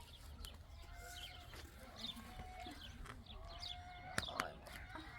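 Faint bird calls: many short high chirps and a few longer held calls. A couple of sharp clicks come about four seconds in.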